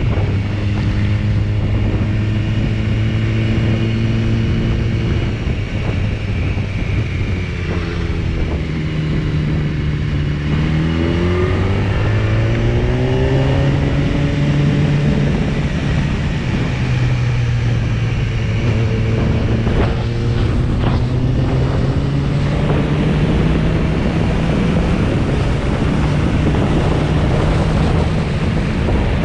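BMW S1000RR's inline-four engine running at steady road speed, with wind rushing over the onboard microphone. About ten seconds in the engine note drops, then climbs over the next few seconds as the bike accelerates, and settles back to a steady pitch.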